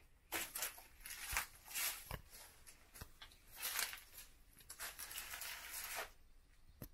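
Faint, irregular scuffs and rustles of footsteps and handling noise, with a small-room echo.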